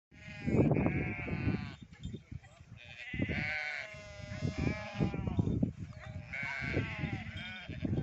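A flock of sheep and goats bleating, several animals calling over one another in quavering calls that come in spells every second or two.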